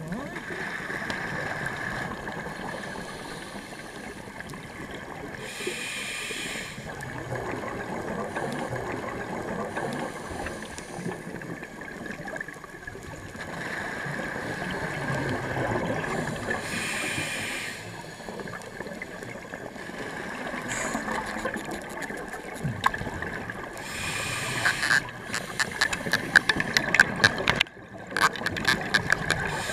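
Underwater sound picked up through a camera's waterproof housing: a steady muffled wash of water, broken every several seconds by the hiss of bubbles from a scuba diver's regulator exhaling. Near the end come many sharp clicks and knocks as a diver handles a net and snare close to the camera.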